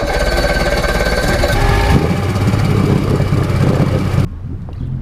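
Force outboard motor running as the boat gets under way, a steady engine note whose low end shifts about two seconds in. It cuts off suddenly a little after four seconds.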